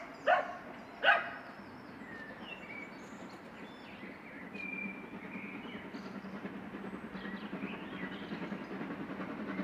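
A dog barks twice in the first second or so. Then the exhaust beats of the approaching Ivatt 2MT steam locomotive 41241 grow slowly louder.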